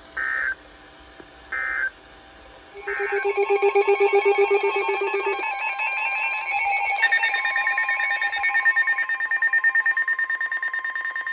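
Three short Emergency Alert System end-of-message data bursts about a second apart, then a loud electronic alert alarm of several tones at once, pulsing rapidly like a ringing telephone bell, whose tones change twice: the alert signal ahead of the next severe thunderstorm warning.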